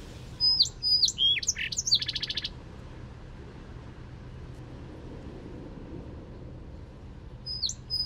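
A songbird singing: a phrase of quick down-slurred whistles ending in a fast buzzy trill, then the song starting again near the end, over a faint steady low hum.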